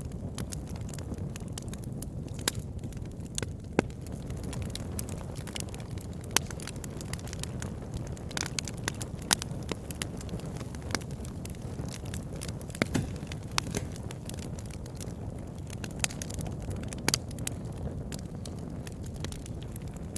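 Campfire burning with a steady low rumble of flame and frequent irregular crackles and sharp pops of burning wood.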